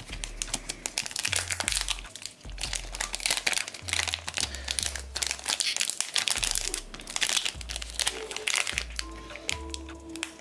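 Foil booster pack wrapper crinkling and crackling in the hands as the next pack is opened, over background music with a stepping bass line.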